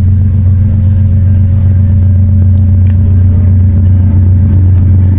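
Loud, steady low hum, with a few faint clicks a few seconds in.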